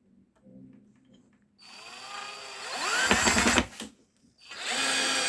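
JPT 21V cordless drill in screwdriving mode driving a screw into wood. The motor starts about one and a half seconds in with a rising whine and grows louder around three seconds in. It stops briefly just before four seconds, then starts again.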